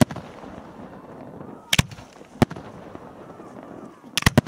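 Aerial firework shells bursting with sharp bangs: a quick pair about two seconds in, another just after, and a rapid cluster of three near the end.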